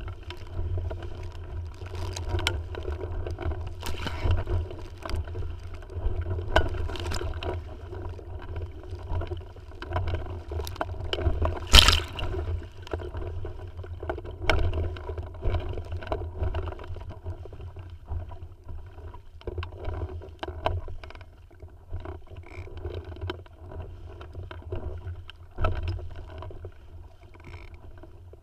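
Wind buffeting the microphone over water splashing and lapping against the hull of a Tiwal 3 sailing dinghy under way, with scattered knocks and one sharp impact about twelve seconds in.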